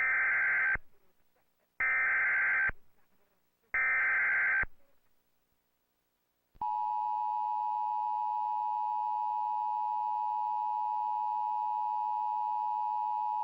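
Emergency Alert System broadcast tones: three short bursts of SAME digital header data, warbling data tones about two seconds apart, followed about six and a half seconds in by the steady two-tone EAS attention signal, which holds without a break.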